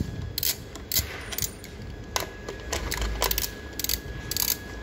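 Socket wrench on an extension bar working the bolts of an engine's top cover, making irregular sharp metallic clicks and clinks, with a quick cluster of clicks near the end.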